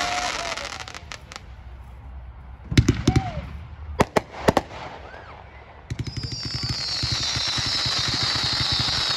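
Dominator "192 Proof" 500-gram fireworks cake firing. A crackle fades out in the first second, a cluster of sharp reports comes about three seconds in and a few more bangs follow around four seconds. From about six seconds in a dense, rapid crackling rattle starts, with a high hiss that slowly falls in pitch.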